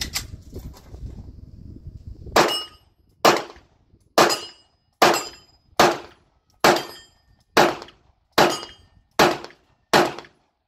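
Semi-automatic pistol fired ten times at a steady pace, about one shot a second, each shot with a short fading echo.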